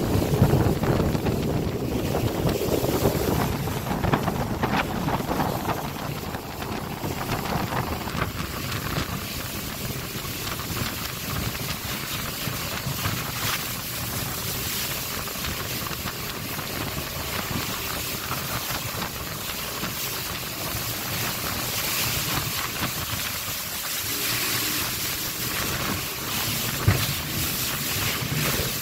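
Motorboat running fast through river rapids: rushing water and spray splashing against the hull, with wind buffeting the microphone. One brief, sharp slap near the end.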